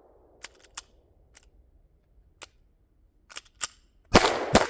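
Two pistol shots near the end, about half a second apart, each ringing out with a long echo. Before them come a few faint, sharp clicks.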